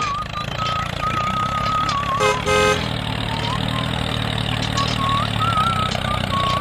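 Tractor engine running steadily at a low pitch, with a short horn toot a little over two seconds in. A wavering high whistle-like tone comes and goes over it.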